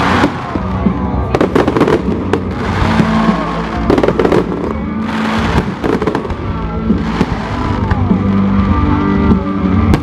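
Fireworks display: repeated sharp bangs and bursts of crackling, some with pitch glides, over loud music.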